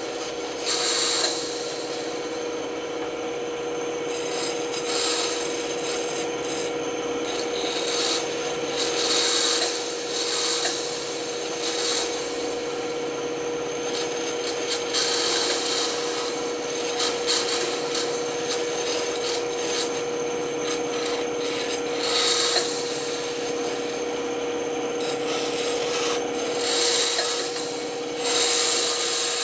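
Band saw running with a steady hum while its blade cuts through wood, the cutting noise swelling in several louder passes as the piece is fed and turned.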